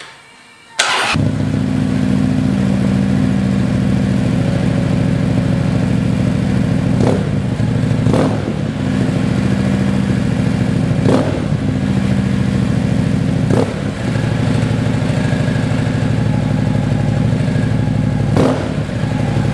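2011 Harley-Davidson Street Glide's Twin Cam 103 V-twin, breathing through Fuel Moto Jackpot 4-inch slash-up slip-on mufflers on the stock headpipes, starts up about a second in and runs loud and steady at idle. It is blipped briefly a few times.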